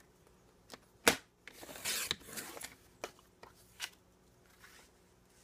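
Sliding-blade paper trimmer cutting a sheet of cardstock. There is a sharp click about a second in, then the blade scrapes through the paper for about a second, followed by a few lighter clicks and taps as the cut piece is moved.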